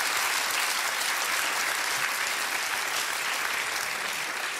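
Studio audience applauding steadily, the clapping a little softer near the end.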